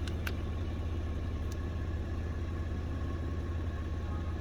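Steady low rumble of an idling engine, with a few faint clicks in the first couple of seconds.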